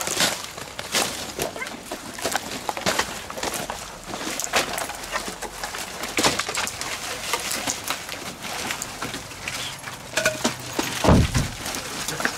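Logs and branches of a woodpile being pulled aside and shifted: repeated irregular cracks, knocks and rustles of wood, with a heavy wooden thud near the end.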